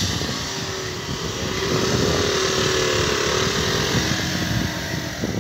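Rushing wind noise on a phone microphone carried on a moving bicycle, steady throughout, with a faint steady hum underneath for a few seconds in the middle.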